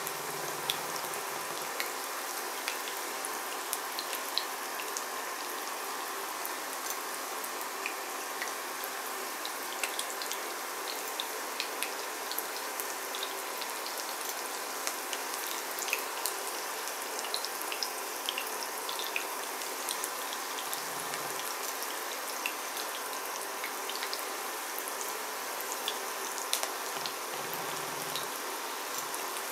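Breaded chicken nuggets frying in shallow vegetable oil: a steady sizzle peppered with many small crackles and pops.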